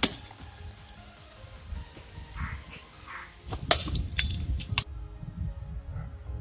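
Homemade slingshot shots at glass bottles: a sharp crack right at the start, and a louder crack about three and a half seconds in followed by a brief clatter, over background music.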